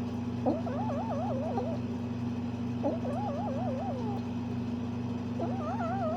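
Bengal cat making three long, warbling calls, the pitch wobbling rapidly up and down within each, over a steady low hum.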